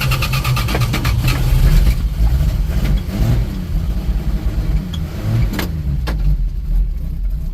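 1968 Dodge D100 pickup engine catching on gas poured down the carburetor throat after a hard start: uneven firing in the first second, then running and being revved up and down.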